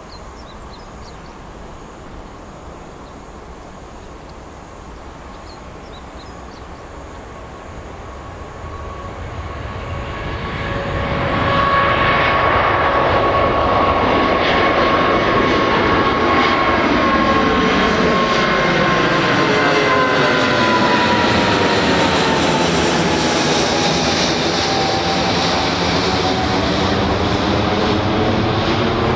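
Boeing 777-281 twin-engine airliner at takeoff thrust, lifting off and passing overhead. The jet noise swells from faint to loud about a third of the way in, then holds loud with a steady whine that slowly falls in pitch as the plane goes by.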